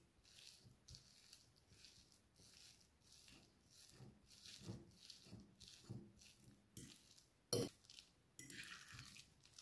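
Metal fork mashing soft cooked pumpkin pulp in a glass bowl: faint repeated strokes about twice a second as the tines press through the pulp and touch the glass, with one sharper clink a little past two-thirds of the way through.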